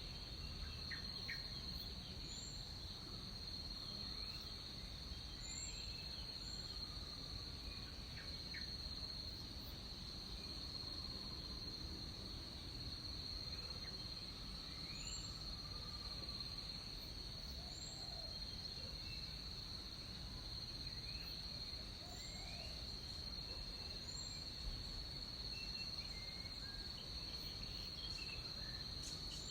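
Jungle insects keeping up a steady, high-pitched drone, with scattered short bird chirps and calls over it.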